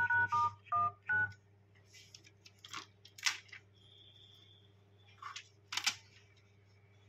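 Xiaomi phone's dialer keypad beeping a quick run of about five key tones, each a two-note DTMF beep, as keys are tapped to check a newly replaced touchscreen. Then a few short crinkles of a clear plastic film being handled over the screen.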